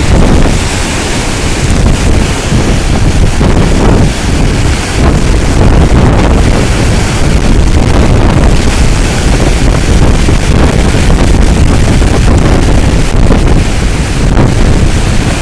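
Strong hurricane wind buffeting the microphone with a loud, continuous rumble, over the rush of storm surf breaking on the beach.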